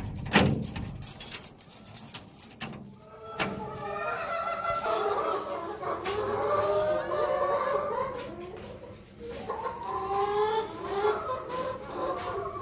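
A few seconds of clattering and rustling, then several chickens clucking together in overlapping short calls.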